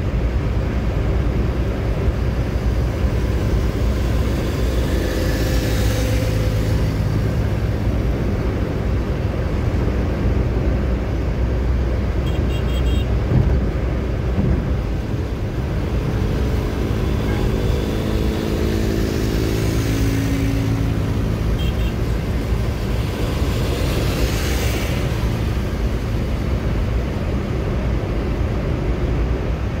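A car driving at speed on a highway, heard from inside the cabin: a steady low rumble of tyres and engine, with swells of rushing hiss about six seconds in and again near twenty-four seconds.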